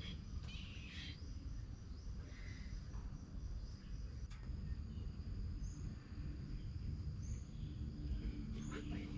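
Outdoor garden ambience: a steady high-pitched insect drone over a low rumble, with a few short high chirps and one or two faint clicks.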